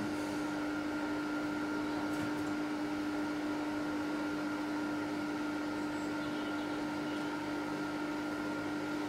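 Lathe's electric motor running with a steady, even hum: one strong constant tone with a fainter higher whine above it.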